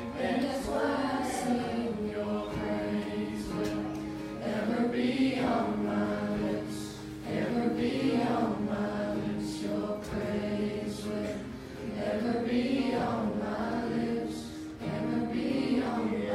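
Church worship singers performing a song, voices with sustained instrumental accompaniment.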